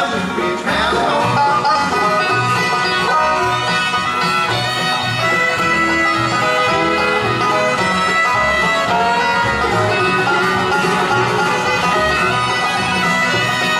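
Bluegrass band playing an instrumental passage live, with banjo, fiddle, guitar and upright bass together and no singing. The bass plucks a steady, even beat under the banjo and fiddle.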